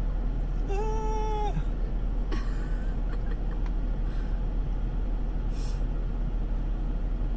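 A person's brief, high-pitched squeal of pain, held about a second and dropping at the end, as a splinter is dug out from under a fingernail, over a steady low hum.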